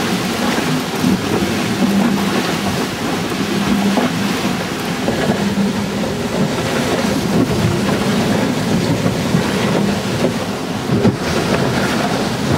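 Wind buffeting the microphone and water rushing and splashing past the hulls of a CATRI 24 hydrofoil trimaran sailing at about 12 knots. A low hum comes and goes under the noise.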